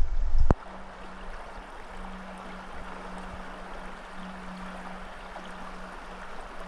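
Steady rush of shallow, clear river water running over a gravel riffle. About half a second in, a loud wind rumble on the microphone cuts off with a click.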